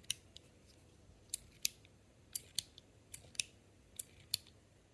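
Stainless steel Metal Toys DZ Top B Snake fidget being worked back and forth, its ball detents snapping into place. The result is about ten crisp metallic clicks, mostly in pairs about a second apart.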